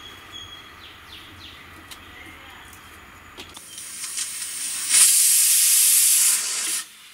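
Pressure cooker on a gas stove letting off a whistle of steam: a hiss builds from about halfway, is loud for about a second and a half, eases a little and cuts off sharply near the end. It is one of the three whistles that tell the cook the lentils inside are done.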